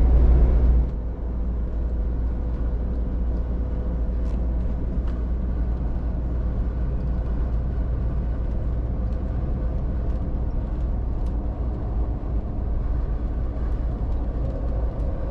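Steady low rumble of a camper van heard from inside its cabin, louder for about the first second, then dropping suddenly to a steadier level with a faint even hum.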